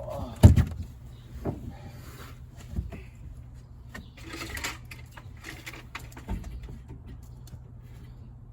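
Knocks and clunks from hand work on the panels and trim inside a car, the loudest thump about half a second in, with a stretch of scraping and rustling around the middle.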